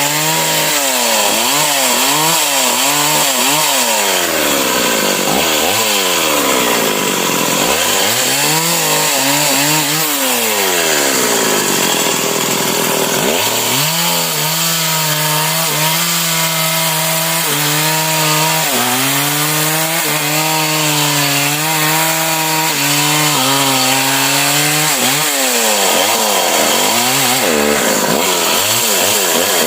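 Stihl MS 381 two-stroke chainsaw running hard through sengon wood. For the first half its pitch rises and falls over and over; about halfway it settles to a steadier, lower note under load in the cut, then swings up and down again near the end.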